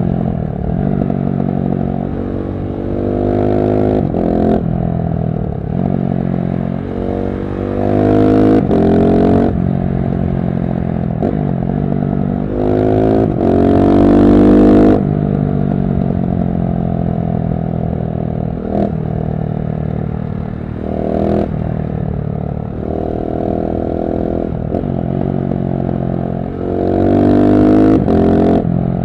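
KTM 690 SMC-R single-cylinder engine through a LeoVince One Evo slip-on exhaust with dB-killer, accelerating in repeated pulls. The pitch climbs and then drops back several times, most strongly around 8 to 9 seconds in and 13 to 15 seconds in.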